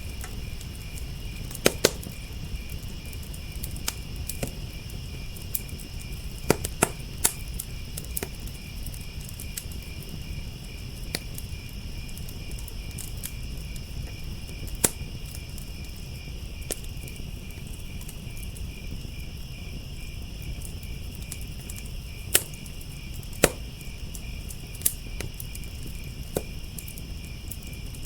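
Wood fire crackling with scattered sharp pops, over crickets chirping steadily and a low steady rumble. The loudest pops come about 2 s, 7 s, 15 s and 23 s in.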